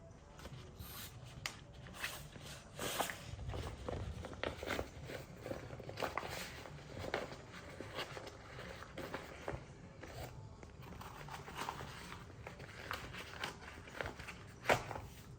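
Irregular rustling and small clicks of hands handling a stiff fabric tool pouch, with one sharper click near the end.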